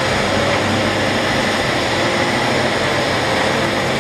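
Heavy diesel engines of Caterpillar mining machinery, large wheel loaders and a haul truck, running steadily as one even, constant noise.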